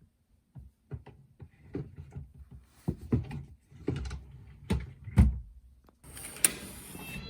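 A run of knocks and thuds, the loudest a little after five seconds in, then a short hiss with a sharp click near the end.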